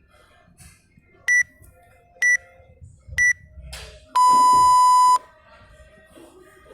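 Interval workout timer beeping a countdown: three short high beeps about a second apart, then one long lower beep lasting about a second that marks the start of the next EMOM round.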